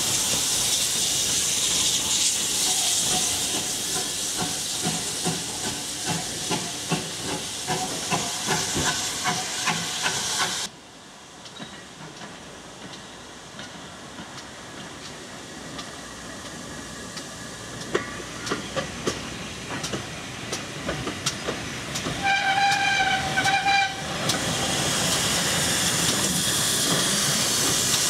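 Steam locomotive (ex-GWR Modified Hall 4-6-0 No. 7903 'Foremarke Hall') hissing loudly, with a run of rhythmic knocks that quicken. The sound breaks off suddenly to quieter clicking as the engine moves slowly tender-first, then comes a short whistle blast and the loud steam hiss returns.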